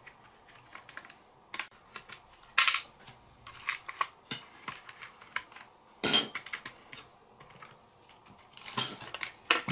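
Scattered clicks and clacks of hard plastic parts and small tools on a Tamiya DT-02 RC car chassis, handled around its loose steering servo, with two louder clacks about two and a half and six seconds in.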